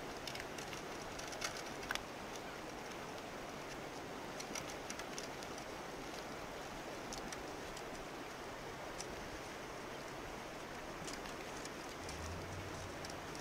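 Steady rush of a shallow river flowing over gravel, with scattered light ticks.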